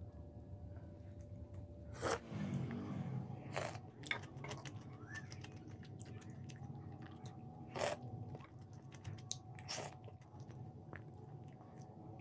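Close-up chewing and biting of pine nut kalguksu, crunching on its cucumber topping, with about four sharp clicks spread through.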